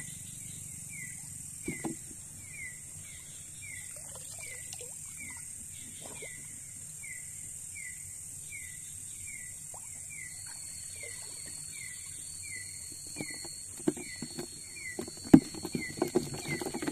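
Night insect chorus by a small river: a steady high-pitched drone, with a short falling chirp repeating about twice a second. From about ten seconds in, a thin high steady trill joins it. Near the end come loud knocks and splashing in the water.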